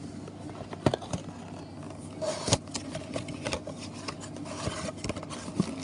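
A football trading-card blaster box being opened and handled: crinkling plastic wrap and cardboard, with scattered sharp clicks and scrapes over a steady low hum.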